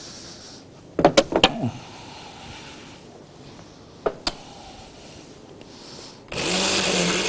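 A few clicks and knocks, then about six seconds in an electric blender switches on and runs steadily, with a low motor hum under a loud whir, blending a watermelon-and-milk smoothie.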